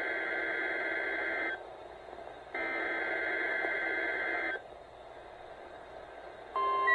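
NOAA Weather Radio sending the SAME digital header for a required weekly test: two harsh data bursts of about two seconds each, a second apart, from a receiver's speaker. The steady 1050 Hz alert tone then starts near the end.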